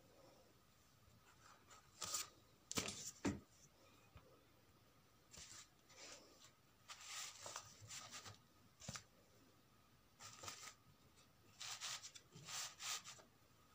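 Cloth being handled and smoothed flat: short, intermittent rustles of fabric, with a light bump about three seconds in.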